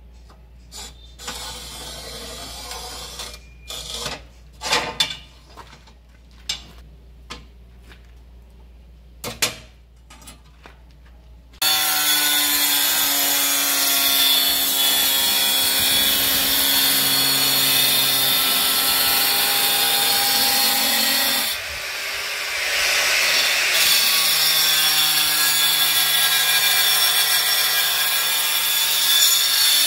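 For the first dozen seconds, scattered clicks and knocks of a ceramic tile being scored and handled on a manual rail tile cutter. Then a handheld electric tile saw (a serra mármore with a diamond blade) starts up suddenly and runs loud and steady, cutting a strip of ceramic tile for skirting, turning harsher and grittier for about two seconds midway before settling again, and stopping at the very end.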